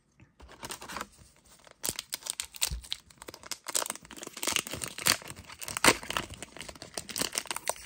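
Foil wrapper of a One Piece Card Game booster pack being torn open and crinkled as it is pulled back from the cards: a dense, crackling run of rips that gets louder about two seconds in.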